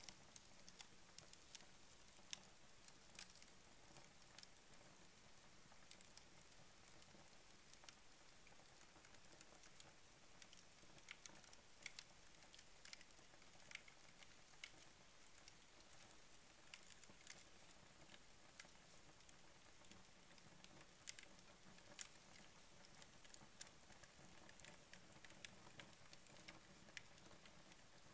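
Faint crackling of cardboard and crumpled paper burning in a stove's firebox: irregular small sharp clicks, a few a second, over a soft hiss.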